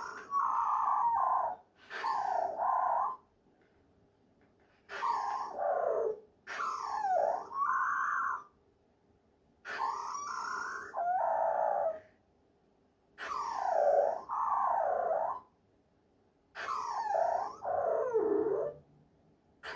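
LOVOT companion robot making soft synthesized cooing vocalizations while asleep, a run of about seven short calls, each one to two seconds long with pitch sliding up and down, separated by brief silences. These are the sleep-time sounds that its owner half-jokingly likens to snoring or sleep talk.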